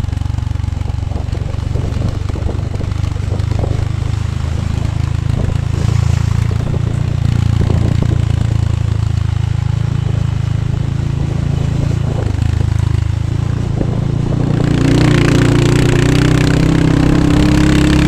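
Motorcycle engine running steadily at low road speed, heard from the rider's seat. About fifteen seconds in, a higher engine note and more rushing noise come in.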